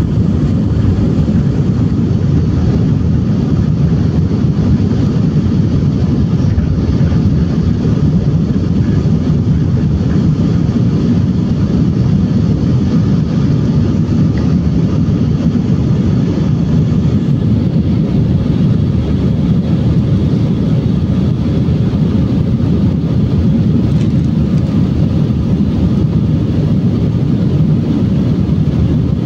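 Jet airliner heard from inside the cabin during takeoff and climb: a steady, loud low noise of the engines and rushing air.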